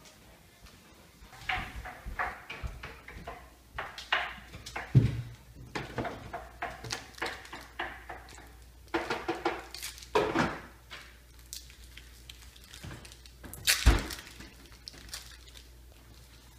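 Household handling noises: an irregular run of knocks and thumps with rustling in between, the loudest thumps about five seconds in and again near fourteen seconds.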